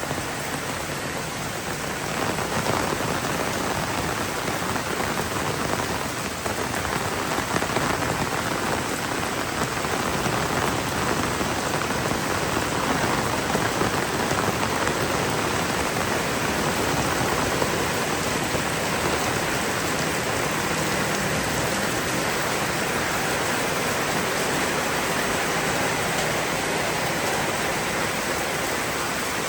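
Heavy rain pouring down in a dense, steady hiss, a little louder from about two seconds in.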